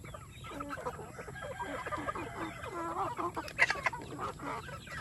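A flock of young native chickens, three to four months old, clucking and chirping while they feed, with many short calls overlapping.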